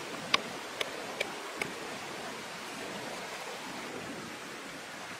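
Steady rushing outdoor background noise, with four sharp, light taps in the first second and a half, about two a second.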